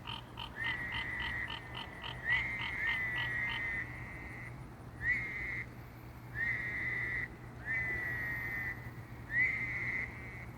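Frogs calling at night. About six calls, each under a second, start with a quick upward slide and then hold steady. Over the first few seconds a faster run of short pulses, about five a second, overlaps them.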